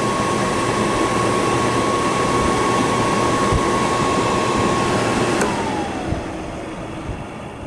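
Gibson 5000 BTU window air conditioner's blower fan running on fan only, a steady airy rush with a thin high whine. About five and a half seconds in, the whine falls in pitch and the sound drops off as the fan slows to low speed. The fan motor has slight bearing noise, typical of a unit approaching 20 years old.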